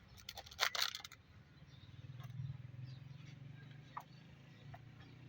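A quick run of sharp clicks and clatter about half a second in, then a low steady hum that swells and fades, with one more click near the end.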